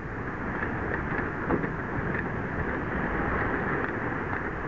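Wind buffeting the microphone over small waves washing up on a sandy shore, a steady rush of noise.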